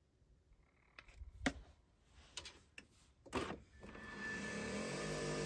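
A few light clicks, then a Nespresso milk frother's small electric motor starts up about two-thirds of the way in and runs with a steady hum as it whisks the coffee.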